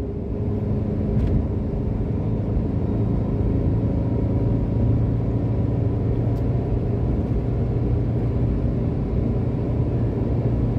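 A car cruising at speed on a motorway, heard from inside the cabin: a steady low drone of engine and tyres on the road.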